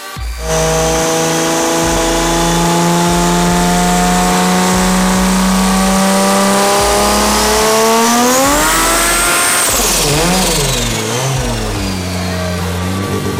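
Turbocharged drag-racing engine running in place. It holds a steady high idle, then revs up sharply about eight seconds in with a rising turbo whistle. It drops back and is blipped up and down several times.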